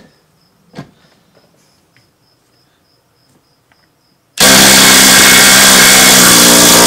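Ryobi P239 impact driver backing a lag screw out of wood, hammering loudly and steadily once it starts suddenly about four seconds in; before that, only a faint click.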